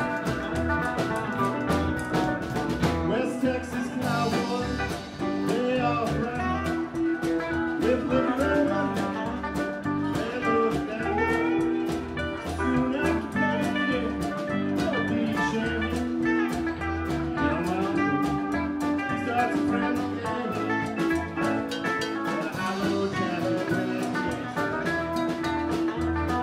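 Live band playing, a guitar line prominent over a steady beat.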